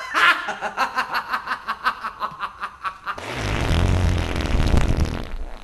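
Laughter in quick, even 'ha-ha' pulses for about three seconds, then a loud, rough noise with a deep rumble for the last two seconds or so.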